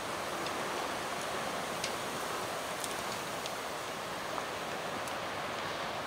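Wind blowing through trees, a steady even hiss with a few faint ticks.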